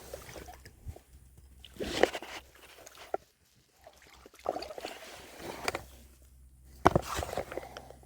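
Scattered knocks, rustles and water sloshing as a caught freshwater drum is handled, unhooked and let go back into the water, the loudest about 2 and 7 seconds in.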